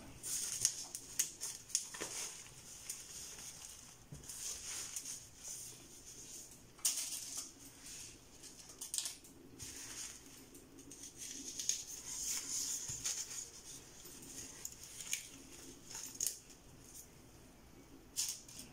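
Hands rustling through a kinky curly hair closure and its lace on a wig cap, in irregular soft bursts with scattered light clicks.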